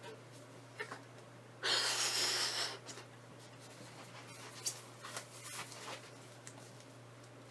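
A single breath blown into a small latex balloon, a rush of air about a second long, putting a little air in it. Light clicks and rustles follow, over a steady low hum.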